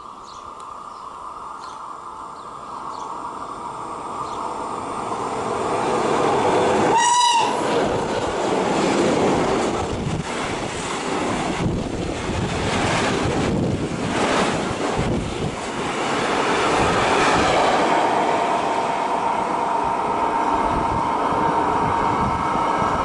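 Electric freight locomotive (FS E652 class) hauling a train of tank wagons running through the station: a rising rumble as it approaches, a short high-pitched whistle toot about seven seconds in, then the loud rush and rhythmic clatter of the tank wagons' wheels over rail joints as they pass.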